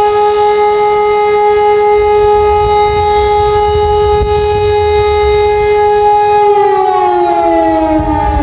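Two warning sirens, an E57 motor siren and a second siren, sounding together, holding two steady tones about an octave apart. About six seconds in, both wind down and fall in pitch, ending one blast of the fire alarm signal.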